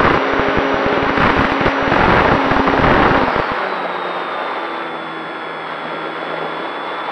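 Onboard sound of a Durafly Tundra RC plane in flight: airflow buffeting the microphone over the steady hum of its electric motor and propeller. About three and a half seconds in the buffeting drops away and the sound gets quieter, leaving a smoother steady motor whine.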